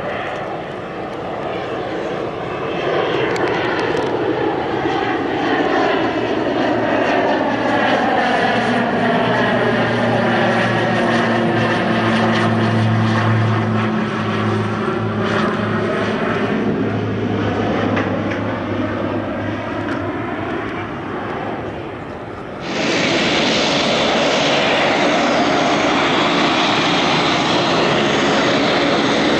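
A Pilatus PC-12 NG's single Pratt & Whitney PT6A turboprop and propeller drone as the aircraft flies low and slow overhead with its gear down. The sound swells as it approaches, with a steady low hum and a swirling, phasing sweep as it passes, then fades. About three-quarters of the way through it cuts abruptly to the steady, louder noise of the same turboprop taxiing close by.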